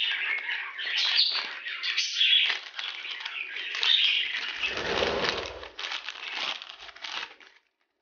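Budgerigars chattering and warbling in quick, jittery chirps, with a brief low rumble about five seconds in; the chatter cuts off suddenly just before the end.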